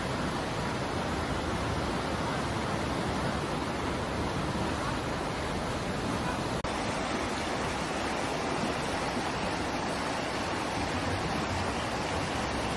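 A steady rushing noise with no distinct events. It drops out for an instant about six and a half seconds in.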